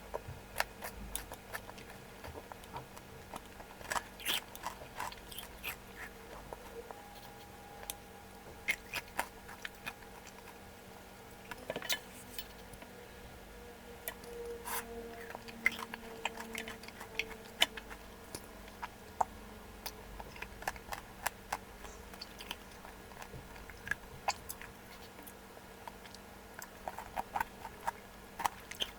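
A person eating malatang close to the microphone: chewing, with many scattered sharp clicks and taps throughout, over a faint steady hum.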